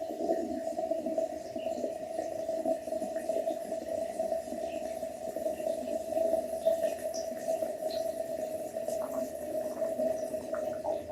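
A steady droning tone, held at one pitch, with a rougher, wavering layer of sound beneath it.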